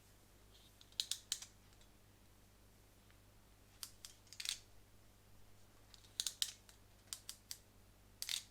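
Scattered sharp clicks and snaps of small hand tools and plastic parts being handled, coming in small groups every second or two.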